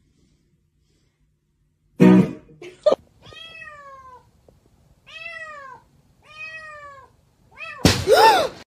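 Kitten meowing: three short meows, each rising then falling in pitch, about a second apart, then a louder meow mixed with a rush of noise near the end. A short loud noise comes about two seconds in, just before the meows.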